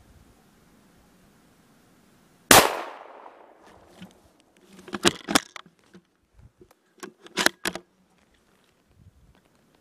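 A single shot from a Bars 4-1 bolt-action rifle in .223 Remington about two and a half seconds in, its report trailing off over about a second. Then two short clusters of sharp metallic clicks a couple of seconds apart: the bolt being worked to chamber the next round.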